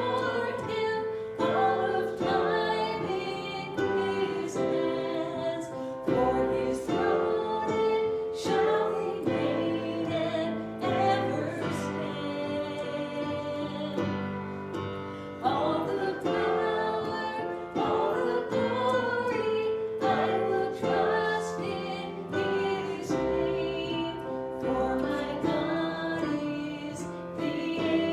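A gospel song sung with instrumental accompaniment, the melody moving in long held notes.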